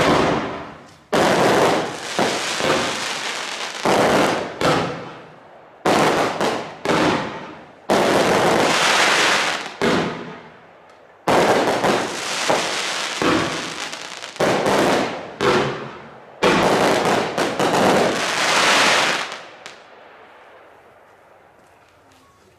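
A 100-shot fanned barrage firework firing: volleys of rapid shots and bursting reports come in waves, each starting suddenly and tailing off, then fade out near the end with a last faint crackle.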